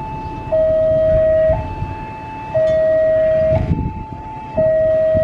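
Railway level-crossing warning alarm sounding its two-tone signal, alternating between a higher and a lower tone about once a second, the lower tone much louder, warning that a train is approaching. A low rumble runs underneath.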